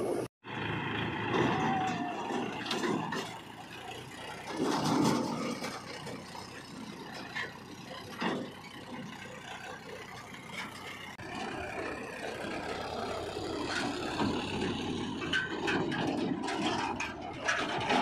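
Powertrac 434 DS Plus tractor's diesel engine running under load as it pulls a loaded trailer over a rough dirt track, with scattered knocks and rattles from the trailer.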